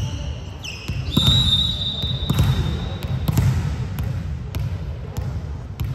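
Volleyball rally sounds on a hardwood court: sneakers squeak sharply in the first second, then a long steady referee's whistle about a second in ends the rally. A few sharp knocks follow over the low rumble of the hall.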